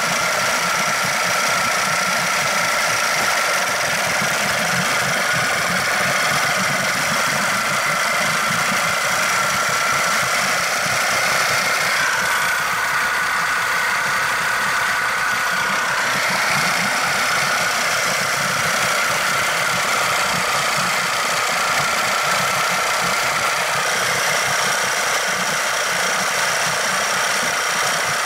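Yamaha/Mariner 6E9 40 hp two-stroke outboard motor running steadily, with a brief change in its note about halfway through.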